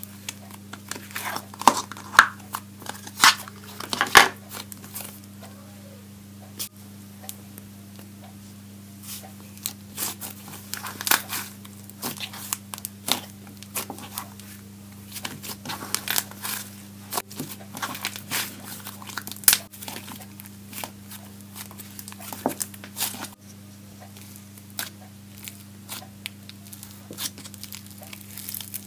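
Hands squishing, stretching and poking a soft fluffy slime in a plastic tub, making irregular clicks and pops, with the loudest pop about four seconds in.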